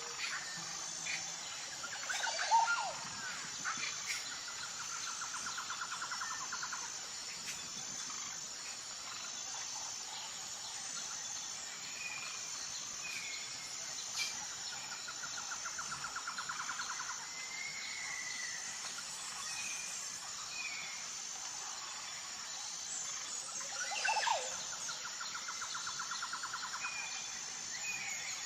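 Outdoor nature ambience: birds chirping and whistling over a steady, evenly repeated high insect chirping. A pulsed trill comes back three times, and a couple of short sweeping calls stand out, the loudest about two and a half seconds in.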